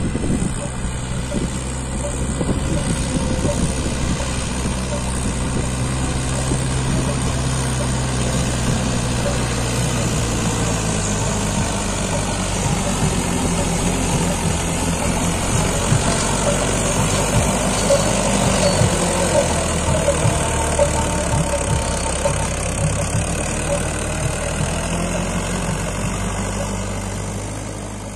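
Mahindra 575 tractor's diesel engine running under load as it hauls a sand-laden trolley through deep, soft sand. It is a steady engine note that changes pitch about eleven seconds in and fades near the end as the tractor moves away.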